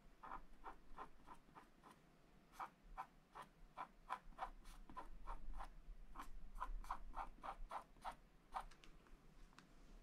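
Wooden stylus scratching short strokes into the black wax coating of a scratch-art card, a faint run of scratches at about three a second that stops about eight and a half seconds in.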